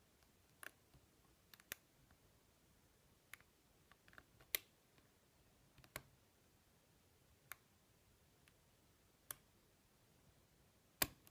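Faint, sparse clicks of a lock pick working the pin stack inside a Yale six-pin euro cylinder, about ten irregular ticks spread over near silence.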